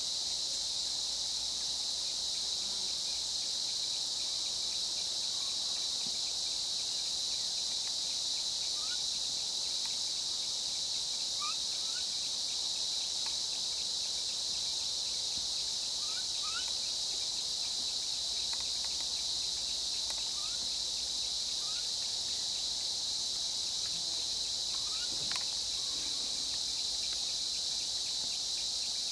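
Steady, high-pitched drone of insects, with a few faint short chirps here and there.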